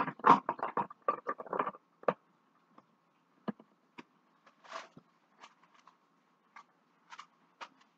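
Clatter of kitchen utensils and dishes while food is plated: a quick run of clicks and taps in the first two seconds, then scattered single taps and a short soft rustle about halfway through.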